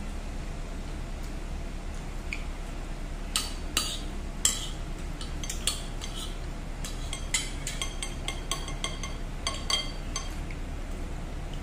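Metal fork and spoon clinking and scraping against a ceramic plate: a string of sharp clinks, some with a brief ring, bunched about three to four and a half seconds in and again from about seven to ten seconds in. A low steady hum lies underneath.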